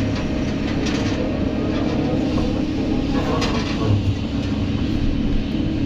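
Kobelco SK200 hydraulic excavator's diesel engine and hydraulic pump running under load as the boom lifts a loaded bucket and the upper structure swings, heard from inside the cab: a steady drone, with a few brief rattles about three seconds in.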